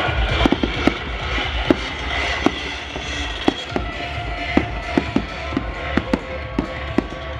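Fireworks salute going off: a string of sharp bangs and cracks at irregular intervals, a few a second, over a steady low rumble.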